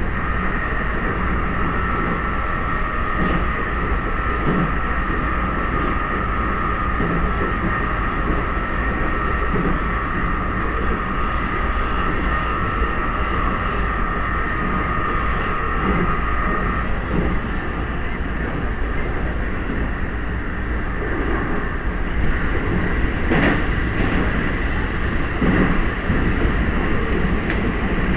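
Keikyu electric train running, heard from inside the front car: a steady rumble of wheels on rail with a high, steady whine from the drive that stops about two-thirds of the way through. The uploader marks this car as one that makes an odd noise.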